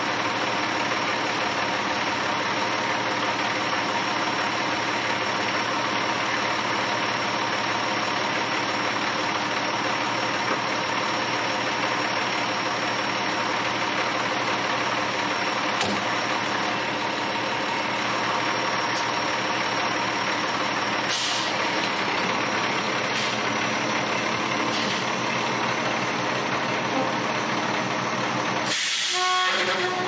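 Ready-mix concrete truck's diesel engine running steadily. A few faint knocks sound in the second half, and a short loud hiss comes near the end.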